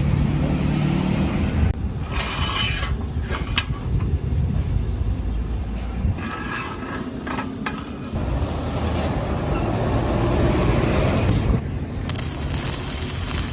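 Stick-welding (SMAW) arc crackling and hissing steadily as an electrode burns along the joint.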